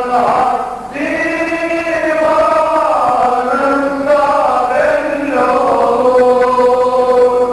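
Male choir chanting a Turkish Sufi ilahi (devotional hymn) in long, held, melismatic lines. The singing dips briefly just under a second in, then carries on.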